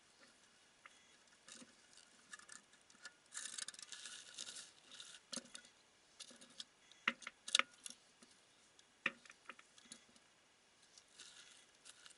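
Faint scattered clicks and knocks of handling as an ice auger is coupled to an 18 V cordless drill, with a short stretch of scraping and crinkling about four seconds in and a few sharper clicks later, the loudest about seven and a half seconds in.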